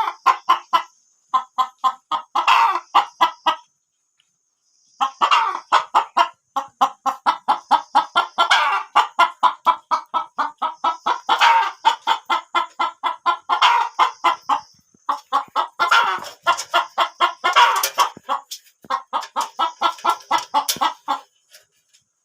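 Chickens clucking in quick, even runs of about five clucks a second, broken by short pauses, with a faint steady high-pitched buzz behind.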